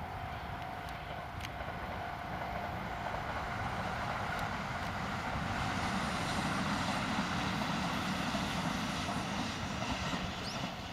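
Kintetsu Ise-Shima Liner limited express electric train running past a level crossing. Its rumble builds to its loudest about two-thirds of the way through. The crossing's warning bell rings steadily at first and is drowned out by the train after a couple of seconds.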